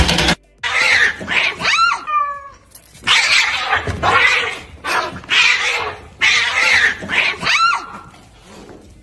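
A cat caterwauling and screeching in a scuffle: harsh outbursts come about a second apart, with a few drawn-out wailing yowls. They start about half a second in and die down near the end.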